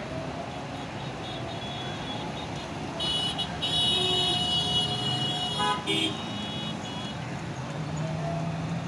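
Steady road-traffic noise, with a high-pitched vehicle horn sounding for nearly three seconds in the middle, then a shorter blast just after.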